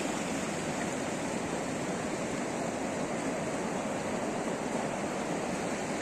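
Fast-flowing river running over its bed: a steady, unbroken wash of moving water.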